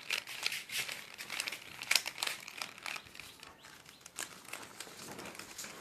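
Rubik's cube layers being turned in quick succession, the plastic pieces clicking and rattling as the last-layer corner algorithm is worked through.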